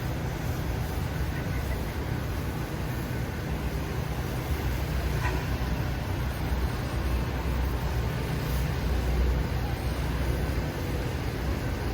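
Steady low rumble of city street ambience, with traffic sound and no distinct events.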